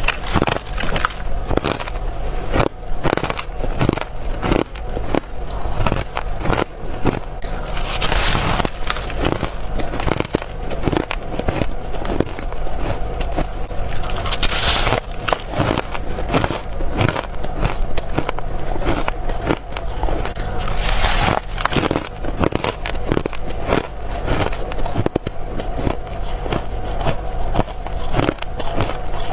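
Teeth biting into frozen frost, a dense run of squeaky, crisp crunches one after another.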